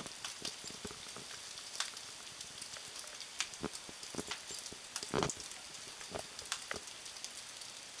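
Sleet and wet snow falling on ice-coated branches and snow: a steady hiss with many irregular ticks and patters, a louder one about five seconds in.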